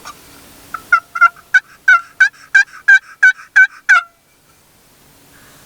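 Hunter's turkey call sounding a run of about eleven loud hen yelps, evenly spaced at about three a second, each note dropping in pitch; it stops about four seconds in. The calling is meant to get the toms to gobble back.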